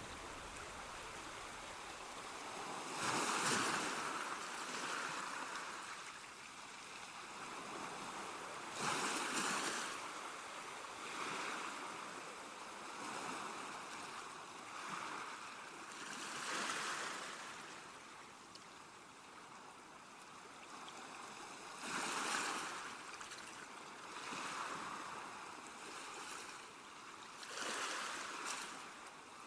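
Rushing water washing in like waves: a steady hiss that swells into a louder surge every five to six seconds and then falls back.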